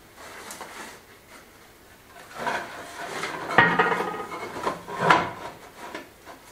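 Natural stone flags scraped and knocked as they are shifted and bedded on sand and gravel by hand. Quiet for about two seconds, then a few rough scrapes and clunks, the loudest about three and a half seconds in with a short grating ring.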